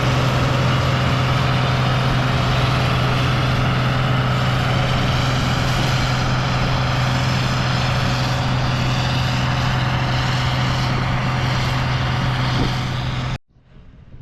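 Combine harvester running steadily under load, a constant low hum with heavy mechanical noise over it. It cuts off abruptly near the end, leaving quieter wind noise.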